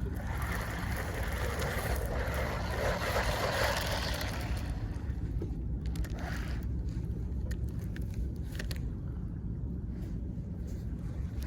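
Sea water washing in over the rocks: a hiss that swells over about four seconds and then fades, over a steady low rumble.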